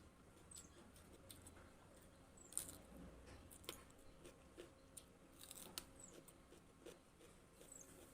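Faint chewing and crunching of raw vegetables, heard as scattered soft clicks, the loudest about two and a half seconds in.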